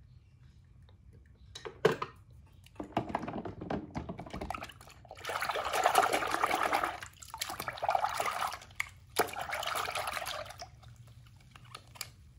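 Water sloshing and splashing in a plastic tub as a hand swishes a small die-cast toy car through it, in uneven bursts of a second or two. A sharp knock about two seconds in, before the splashing starts.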